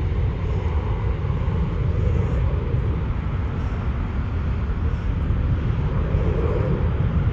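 Jet airliner flying away, a steady low rumble of its engines.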